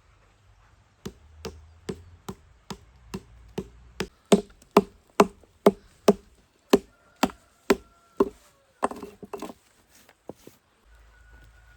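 A tool striking wood in a steady run of about seventeen sharp blows, roughly two a second, growing louder after the first few, then a ragged flurry of lighter knocks and two last taps.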